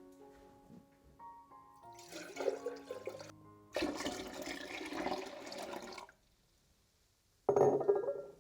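Water rushing in three spells, each starting and cutting off sharply; the longest lasts about two seconds and the last, shortest one near the end is the loudest. Soft piano music fades out under the first spell.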